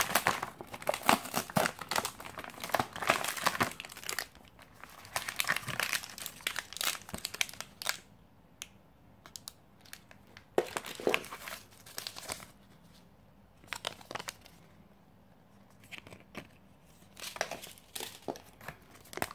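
Foil and plastic packaging of a military field ration crinkling as hands rummage through the opened ration bag and handle wrapped bars. The rustling is dense for the first several seconds, then comes as occasional short crinkles with quiet gaps.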